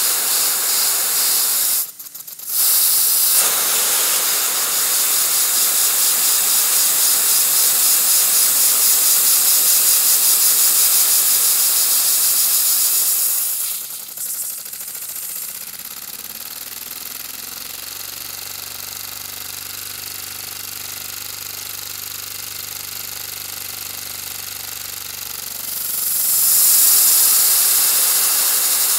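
Vacuum cleaner suction rushing air through a Lego vacuum engine: a steady loud hiss with a fast fluttering pulse. It drops out briefly about two seconds in. From about fourteen seconds the hiss falls to a quieter, lower hum with steady tones, then swells back up near the end.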